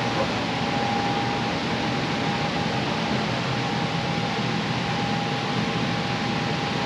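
Steady fan-like rushing noise with a faint steady whine in it, unbroken and even.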